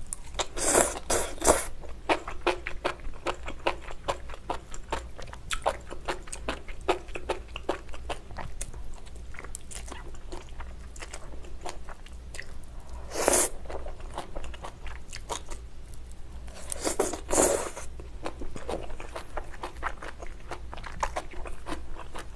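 A person chewing mouthfuls of malatang close to the microphone, with many small wet mouth clicks. She slurps in a mouthful of enoki mushrooms near the start and slurps twice more later on.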